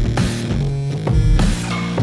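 Electronic music with a steady beat and deep bass.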